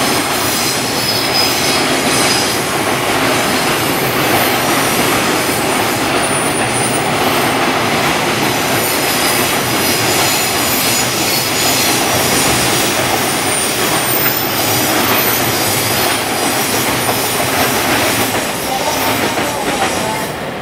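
Long container freight train rolling past: a loud, steady rumble of wagon wheels on the rails with a faint high wheel squeal. It eases off slightly near the end as the last wagons go by.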